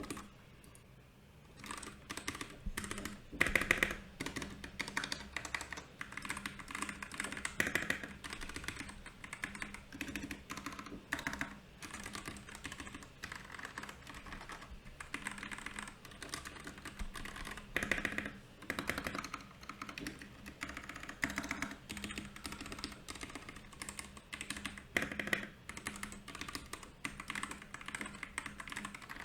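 Continuous typing on a Royal Kludge RK68 mechanical keyboard: a steady stream of key clicks and clacks, with a brief pause just after the start and a few louder strokes now and then.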